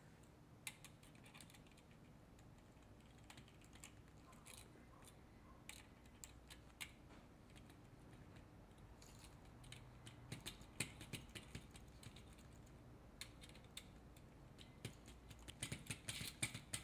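Faint, scattered small clicks of a small screwdriver working the screws of a hard drive's platter clamp, coming more often near the end.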